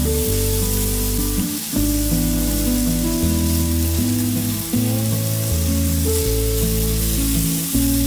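Beef and vegetables sizzling in a frying pan while the meat is turned over with chopsticks, with background music playing over it.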